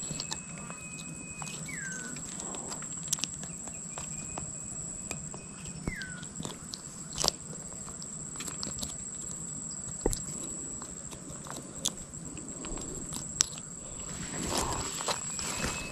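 Outdoor waterside ambience: a steady high-pitched whine, two whistled calls about 2 and 6 seconds in, each a long held note that slides down at the end, and scattered light clicks and taps.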